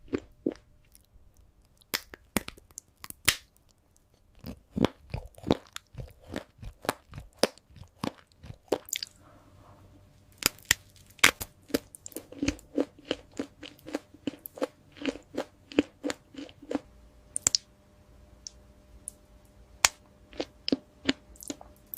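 Close-up crisp crunching and chewing of crunchy sweets: sharp, crackly bites in quick runs, about three a second through the middle.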